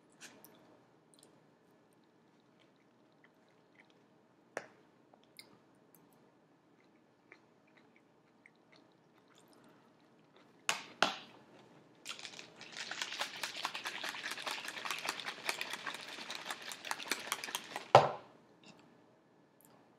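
A drink poured into a cup for about six seconds with a dense crackling fizz, ending in a loud knock as it is set down. A few scattered knocks and clicks of tableware come before it.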